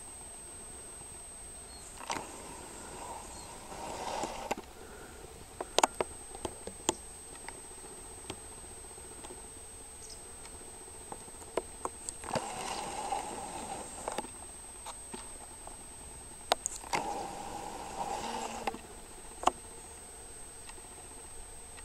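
Rustling in three stretches of a second or two, with scattered sharp clicks and knocks, over a faint steady high-pitched whine.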